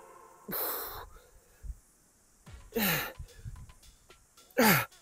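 A man gasping for breath, worn out by a high-intensity workout: a sharp breathy exhale about half a second in, then two groaning sighs that fall in pitch, one about three seconds in and one near the end.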